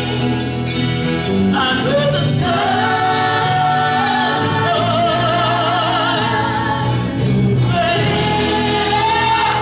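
Gospel song with a choir singing held notes with vibrato over steady instrumental accompaniment.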